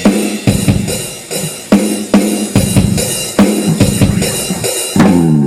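Rock-style intro music: a drum kit beat with bass drum and snare over a bass line, with a falling guitar glide near the end.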